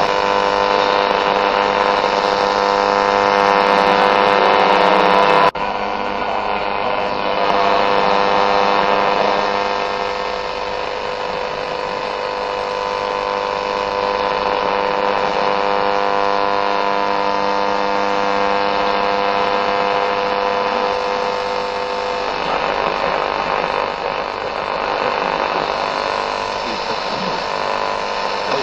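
Golon AM radio scanning the medium-wave band, giving a steady electrical buzz with many overtones instead of a station's programme. The buzz changes abruptly about five and a half seconds in and thins out around twenty-two seconds in, as the dial steps on.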